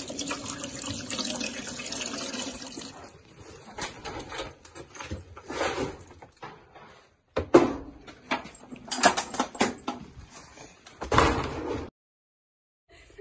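Tap water running into a sink for about three seconds while grooming tools are rinsed, then a series of knocks and clatters as things are put away, with a metal locker door being handled.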